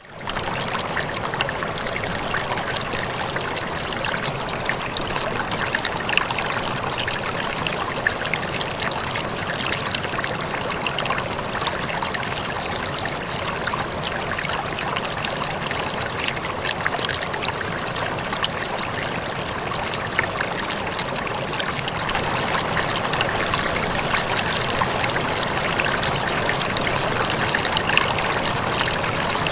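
Aquarium water trickling and splashing steadily, with many small splashes and bubble pops, cutting in suddenly at the start.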